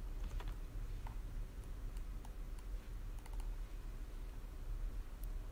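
Scattered, irregular clicks of a computer mouse and keyboard over a low steady hum, as components are added and values typed in software.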